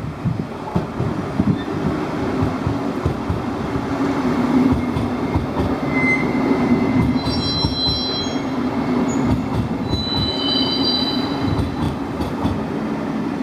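A train running past on the rails: a steady rumble with the clatter of wheels over rail joints, and two brief spells of high wheel squeal in the second half.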